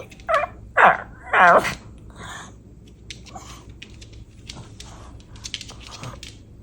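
Long-haired chihuahua making whiny, talking-like vocal sounds instead of barks: three short calls in the first two seconds, the last longer and wavering in pitch, then a faint one and soft clicks.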